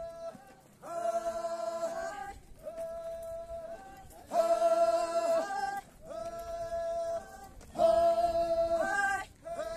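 A group of voices singing unaccompanied in long held notes: a quieter single line answered by a louder full chord, the two alternating every second and a half or so, three times over.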